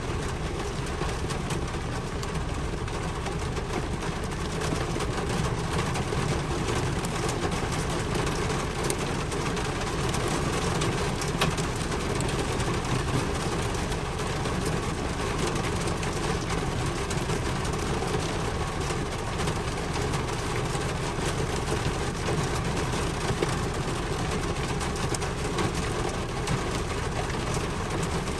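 Steady rain falling, an even hiss that stays level throughout.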